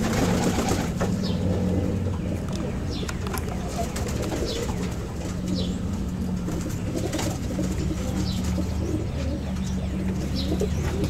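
Domestic pigeons cooing in a loft: a low, steady cooing, with short high chirps every second or so.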